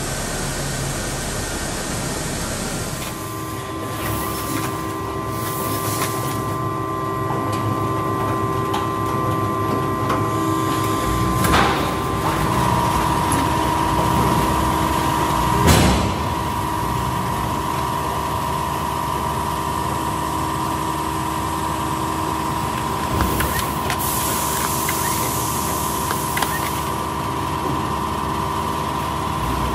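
Mobile concrete batching plant machinery running: a steady motor hum with mechanical rattle. A higher steady tone joins about twelve seconds in, and there are sharp knocks about eleven and sixteen seconds in, the second the loudest.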